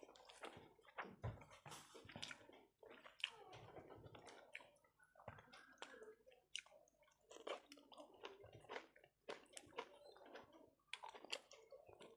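Soft, irregular chewing of a person eating rice and curry by hand, with the squish of fingers mixing rice on a plate.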